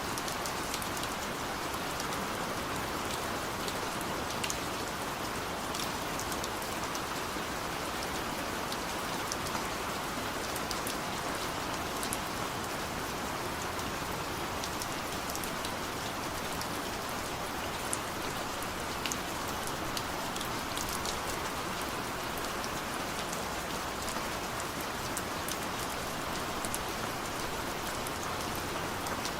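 Steady rain: an even, constant hiss with scattered faint drop ticks throughout.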